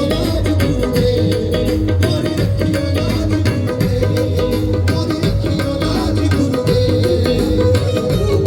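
Live band playing an instrumental passage of Punjabi folk music, with percussion keeping a steady beat.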